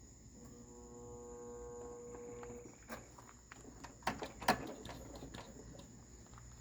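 Riding lawn mower's electric starter motor spinning with a steady whine for about two seconds without turning the engine over, the starter drive failing to engage, followed by a few sharp clicks and knocks. Crickets chirp steadily throughout.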